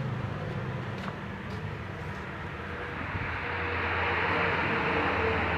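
A motor vehicle's engine running steadily, with a noisy rush that builds and grows louder in the second half.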